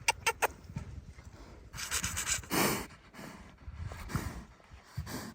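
A pig's noises close by: a few sharp clicks right at the start, then short breathy bursts about two seconds in and again around four seconds.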